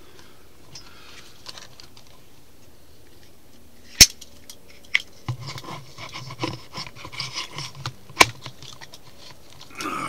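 Handling noise from a camera being moved at a hunting blind's window: a sharp click about four seconds in and another near the end, with rustling and light knocks between them.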